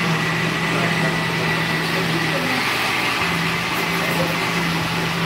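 Steady mechanical hum from a running kitchen appliance: an even whirring noise with a low drone that drops out briefly about halfway through.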